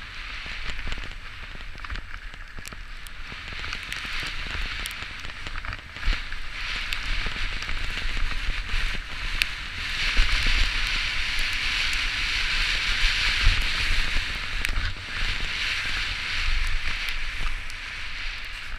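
Crackling hiss of a mountain bike being ridden on a wet dirt trail: tyres running over wet dirt and grit, with scattered clicks and knocks. It gets louder about ten seconds in.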